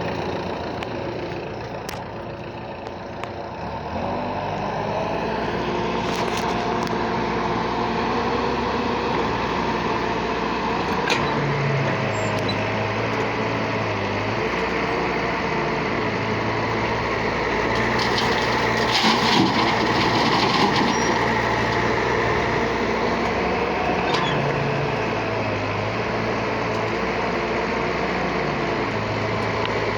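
Excavator's diesel engine running, its note stepping up and down as the hydraulics take and release load, with a few short knocks along the way.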